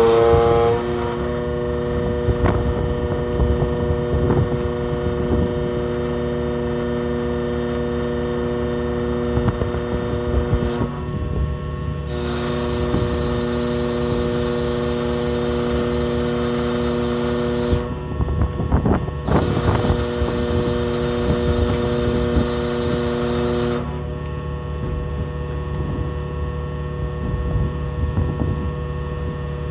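Ship's hydraulic deck crane and winch running under load as a heavy lander is lowered over the side: a steady humming drone made of several tones. It drops out briefly about a third of the way in and again just past halfway, then falls back near the end, over a constant low engine rumble, with a few knocks in the middle.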